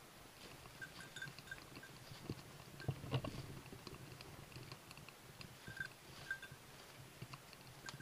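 Faint, intermittent tinkling of a hunting dog's bell over crunching footsteps and brushing through dry leaves and undergrowth, with a louder crunch of brush about three seconds in.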